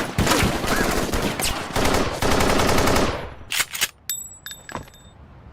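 Rapid machine-gun fire imitated with the mouth as human beatbox, a dense rattle of sharp cracks for about three seconds. It then thins to a few separate shots with a thin high ringing.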